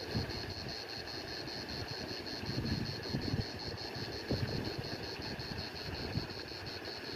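Wind buffeting the microphone in uneven gusts, under a high, steady trill that pulses rapidly and evenly, typical of an insect.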